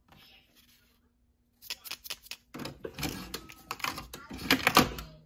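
Plastic clicks and knocks of a coffee pod being handled and loaded into a single-serve pod coffee maker, with the brewer's lid and holder clicking into place. A quick run of sharp clicks starts about a second and a half in and gets busier and louder toward the end.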